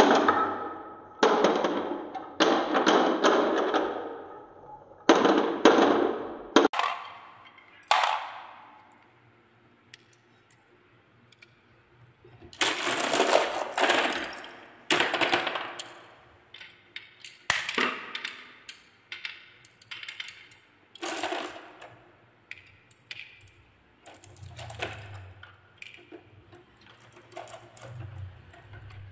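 Balls rolling and clattering down wooden marble-run tracks in dense rattling runs, with a short lull partway through. Toward the end come scattered clicks as the balls knock into one another and queue up on a wooden slope.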